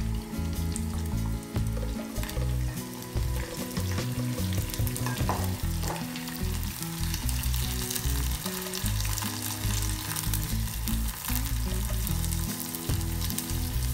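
Onion, garlic, ginger, curry leaves and green chillies sizzling as they fry in hot oil in a small non-stick wok, a steady hiss with scattered crackles. A silicone spatula stirs them near the end.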